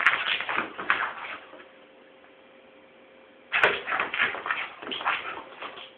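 A mixed-breed dog scuffling and scrabbling while it plays wildly, making quick scraping and clicking noises in two bursts, the first at the start and the second from about halfway to near the end.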